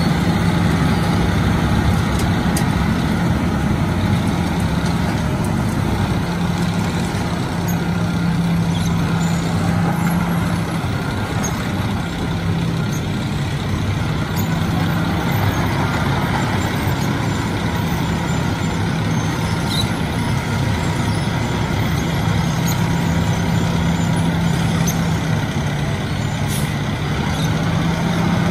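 Wirtgen W 120 CF compact cold milling machine at work: its diesel engine running under load while the cutting drum grinds up the asphalt surface and the conveyor carries the millings up into a dump truck. A loud, steady mechanical din with a constant low hum.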